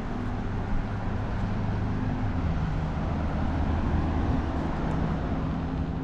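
A motor vehicle's engine running steadily, a low rumble whose pitch drifts slightly down and back up.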